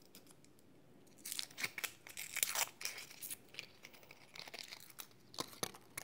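Close crinkling and tearing handling noise from hands at work. A dense crackly stretch of about two seconds starts just over a second in, followed by scattered clicks and crackles.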